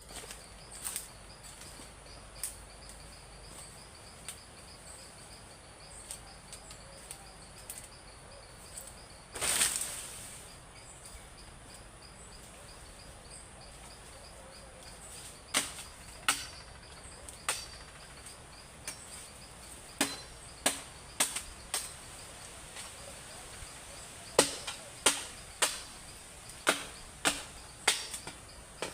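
A series of sharp knocks or chops, scattered at first and then in quicker runs in the second half, over a steady pulsing high chirp of insects. About ten seconds in, a louder rushing sound lasts about a second.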